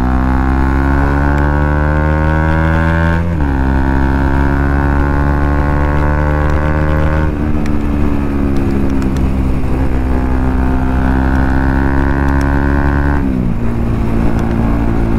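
Bajaj Pulsar NS200's single-cylinder engine running through an aftermarket Akrapovic slip-on exhaust on a new bend pipe while riding. The engine note climbs under acceleration, drops at an upshift about three seconds in and again about seven seconds in, then holds fairly steady before dropping once more near the end.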